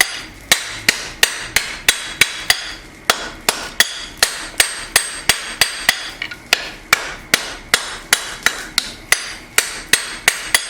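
Hand hammer striking hot steel on an anvil in a steady rhythm, about three blows a second, each with a short metallic ring, as a knife blank is forged straight.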